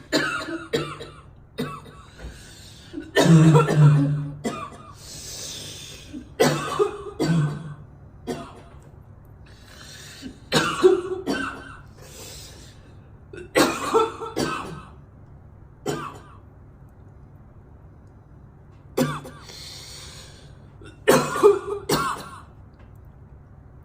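A girl coughing in repeated fits: clusters of several harsh coughs come every two to three seconds, with a longer gap after about sixteen seconds. It is a spell of choking coughs.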